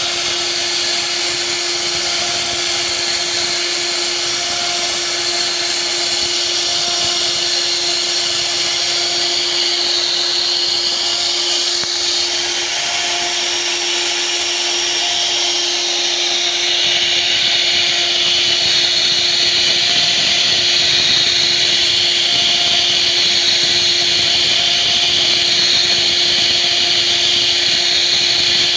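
CNC router spindle running at a steady pitch while its bit carves wood, with a hissing cutting noise over it that grows a little louder about two-thirds of the way through.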